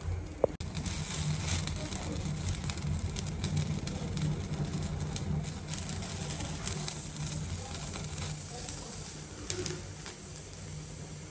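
Gas-stove burner flame burning under long brinjals on a wire roasting rack, a steady low rumble, while the oiled skins crackle and sizzle now and then as they char. A brief click about half a second in.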